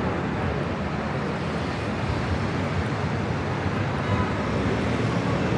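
Steady traffic noise of a busy city road, with motorcycles and cars passing.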